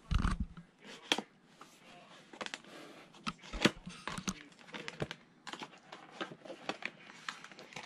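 Cardboard retail box for a computer mouse being unsealed and opened by hand: a run of irregular sharp clicks, scrapes and tearing as the seal tab comes off and the lid flaps are pried open, with a fuller rustle right at the start.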